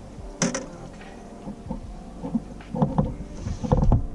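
A large northern pike thrashing in a landing net at the side of a boat: a pair of sharp knocks about half a second in, then a run of heavy thumps and splashing from about three seconds in, loudest just before the end.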